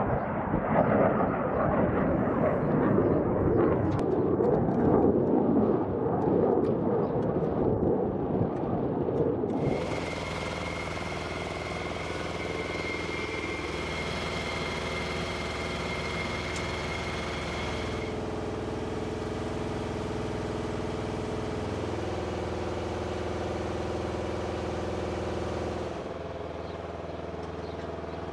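Flight-line ambience of vehicle engines and ground equipment running steadily. It is rough and louder at first, with light clanks, then drops to a steady hum with a held whine that changes abruptly several times.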